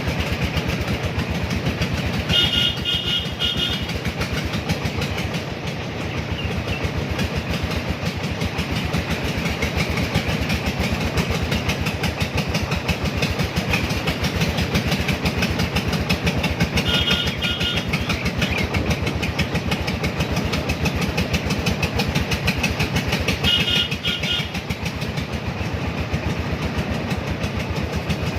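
Three-wheeler goods carrier's engine running steadily under way with a fast, even chugging. Short bursts of rapid horn beeps come three times: about two seconds in, midway, and about two-thirds of the way through.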